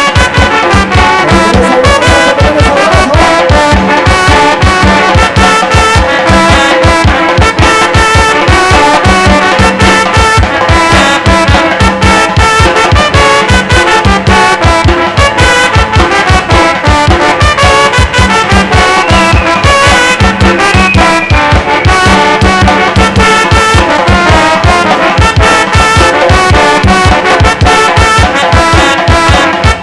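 Tamborazo brass band playing live: trumpets and trombones in full sound over a steady, driving drum beat.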